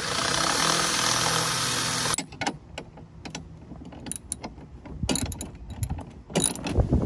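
Cordless drill running steadily for about two seconds, boring a half-inch hole through aluminum. It stops suddenly, and a socket ratchet follows, clicking in short irregular runs as a bolt is tightened.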